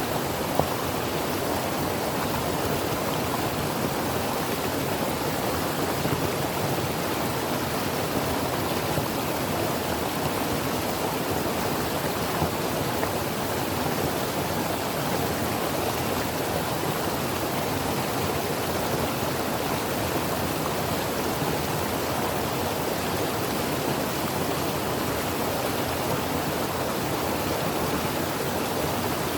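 Creek water flowing steadily over rocks, an even rushing babble.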